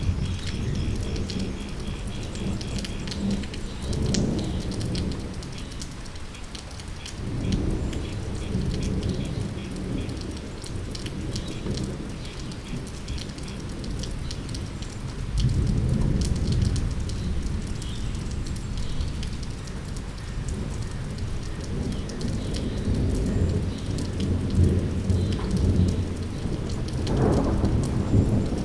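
Steady rain falling, with patter and drips, under low rumbles of thunder that swell and fade several times.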